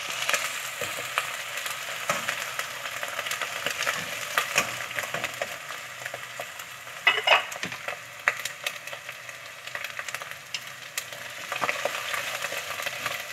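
Sliced onions and ginger-garlic paste sizzling in hot oil in a nonstick pot, with the steady crackle of frying and a wooden spoon stirring and scraping through them. A brief louder sound comes about halfway through. This is the bhuna stage, frying the raw paste with onions that have turned soft and light brown.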